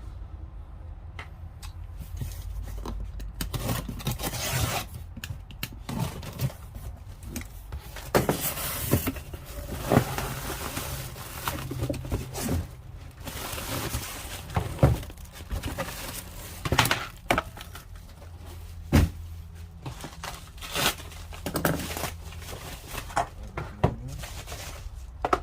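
Tool packaging being opened and handled: repeated tearing, crinkling and scraping, with scattered sharp knocks and clicks, over a steady low hum.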